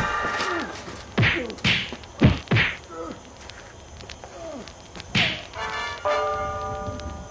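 Film sound effects of punches: about five hard whacks, four of them within the second and a half after about a second in and one more near five seconds, some led in by a swishing hiss. A held musical chord comes in about six seconds in.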